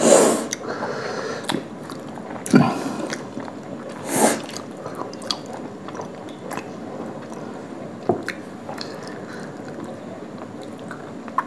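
Wet, squishy chewing of an oversized mouthful of soft rumali roti soaked in dal makhni, close to the microphone, with small mouth clicks throughout and a few short louder bursts in the first four seconds.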